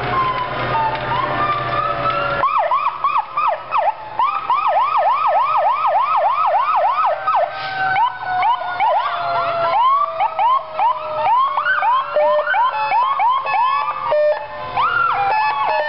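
Several fire trucks' electronic sirens sounding at once, overlapping wails and yelps. A fast yelp of about three sweeps a second stands out from a couple of seconds in.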